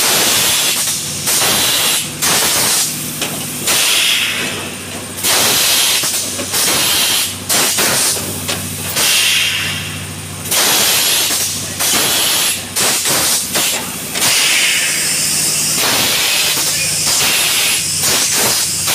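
Fully pneumatic PET stretch-blow moulding machine cycling: loud hissing bursts of compressed air, each about a second long, come again and again as its cylinders and blow valves fire and exhaust. A steady low hum runs underneath.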